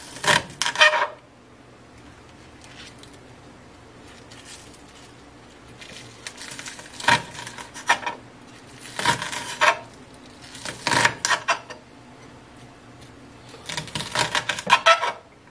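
Chef's knife chopping scallions on a cutting board: short runs of quick blade taps against the board, five or so bursts with pauses between them.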